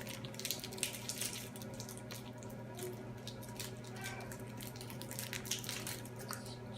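Soft crinkling and clicking of a candy wrapper being handled and opened, a quick run of small crackles over a faint steady electrical hum.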